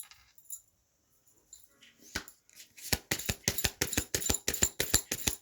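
Deck of tarot cards being shuffled by hand: a few soft card clicks, then about halfway through a fast, even run of sharp slaps, about five a second.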